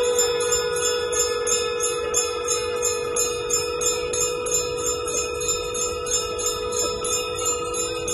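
Temple bells ringing rapidly and evenly through a long steady note, which is the priest blowing a conch shell (shankh) during the Ganga Aarti.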